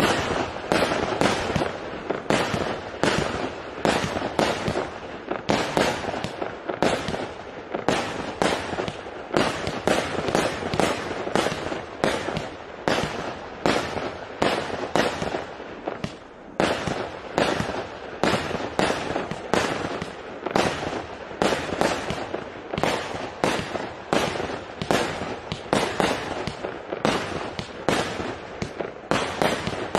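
A 168-shot, 0.8-inch-calibre consumer firework cake firing, about two sharp bangs a second in a steady string.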